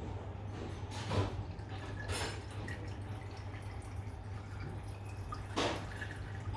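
Petrol being poured into a cylinder head's intake ports for a valve leak test, dripping and splashing in a few short spurts over a steady low hum.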